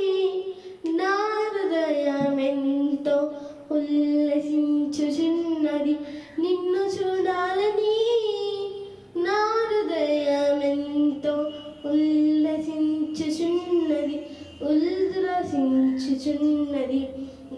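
A young girl singing a Telugu song into a handheld microphone, one voice in long sustained phrases that glide in pitch, with short breaths between the lines.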